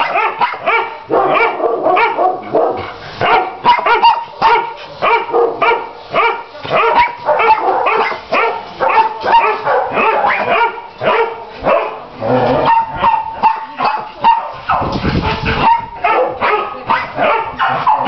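Many dogs barking and yipping at once in shelter kennels, a loud, continuous jumble of overlapping barks.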